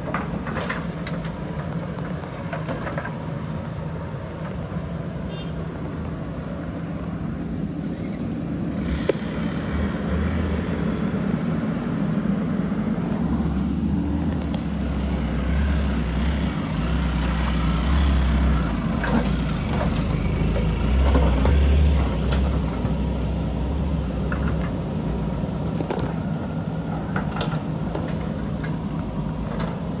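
JCB backhoe loader's diesel engine running steadily as it works. A heavier low engine rumble builds and fades across the middle as a motorcycle rides past over the rubble. A few short knocks from the bucket on rock come near the end.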